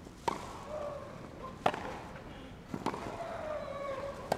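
Tennis ball struck back and forth in a rally on a grass court: four sharp racket hits over a second apart, with a player's long grunt, falling in pitch, after one of the shots.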